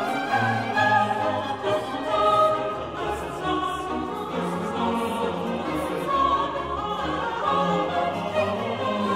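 Classical choral music: a choir singing sustained lines with orchestral accompaniment.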